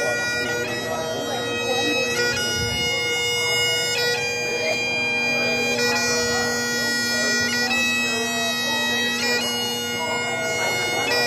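Great Highland bagpipe playing a slow melody: steady drones held underneath while the chanter moves from note to note every second or two, with quick gracenote flicks between notes.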